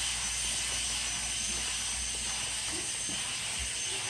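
Steady, even background hiss with a thin high whine in it and no distinct events.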